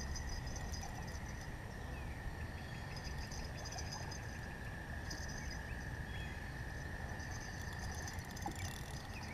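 Chorus of calling insects: a steady high buzz with higher chirping trills that come in short pulsing bursts, over a low steady rumble.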